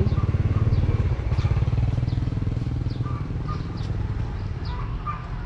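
Motorbike engine running at low speed with a rapid low beat, gradually getting quieter.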